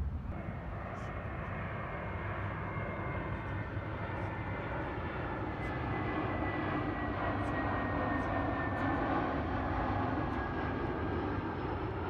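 Passing aircraft: a steady rush with a faint whine that falls slowly in pitch, growing louder past the middle and easing slightly near the end.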